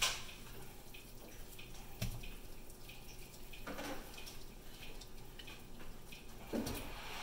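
Raw shell-on shrimp dropped one at a time into a wok of simmering vermouth, each landing with a small splash, about four times, over the faint bubbling of the simmer.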